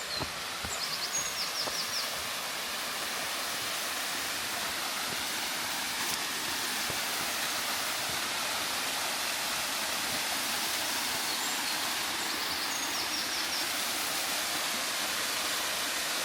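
Small waterfall rushing steadily, with a few short bird chirps near the start and again late on.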